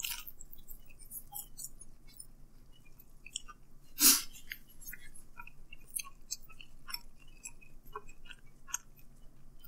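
A man chewing a bite of cheese pizza close to the microphone: a run of small, irregular wet mouth clicks and smacks, with one louder short sound about four seconds in.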